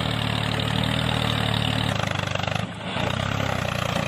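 Tractor engine running steadily at a low, even note, dipping briefly about two and a half seconds in.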